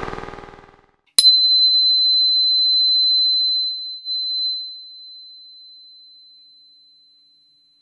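A steady pitched hum fades out in the first second. About a second in comes a sharp click, followed by a single high, pure ringing tone that holds for a few seconds and then slowly dies away.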